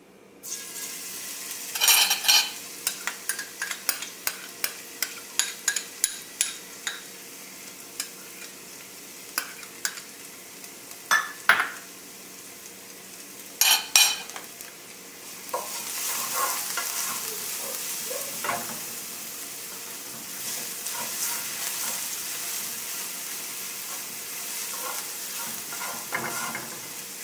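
Minced garlic sizzling in hot oil in a skillet, with a run of sharp taps in the first few seconds and a few more around the middle as the garlic goes in and is worked around the pan. The sizzling gets louder about halfway through.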